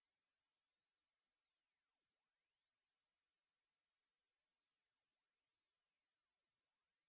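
Hearing-test tone: a single very high-pitched pure tone at a constant level, gliding slowly and steadily upward in pitch to probe the upper limit of hearing.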